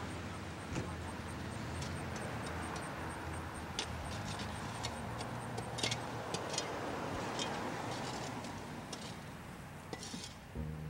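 Mulch being spread around a newly planted tree: irregular scrapes and clicks over the steady drone of an engine running.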